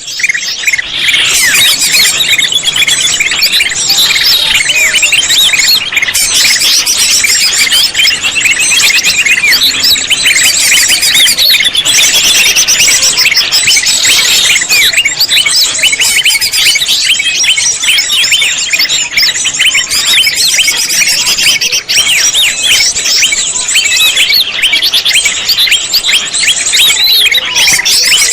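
Loud, dense, unbroken bird chattering: rapid overlapping chirps and trills, played as a lure call for trapping cucak hijau (green leafbirds).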